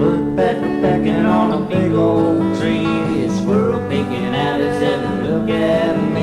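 A man singing a country-folk song over strummed acoustic guitar.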